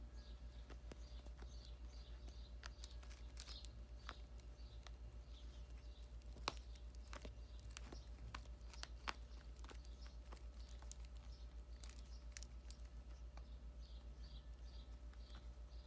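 Faint soft clicks and rustles from toy poodle puppies mouthing plush toys and shifting on their bedding, over a steady low hum. A few sharper clicks stand out about six and a half and nine seconds in.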